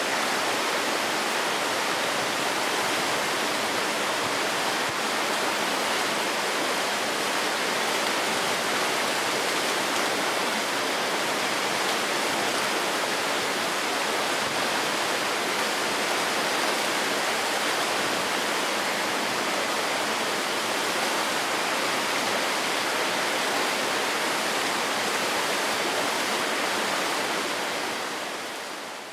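Rushing water of a rocky creek: a steady, even hiss that fades down near the end.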